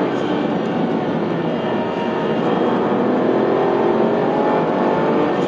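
Aston Martin Virage's V12 engine pulling under way, its pitch climbing gradually as the car gathers speed, over steady road and tyre noise.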